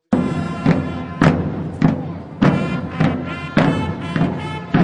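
Music with a slow, steady drum beat, a heavy hit about every 0.6 s, under held chords.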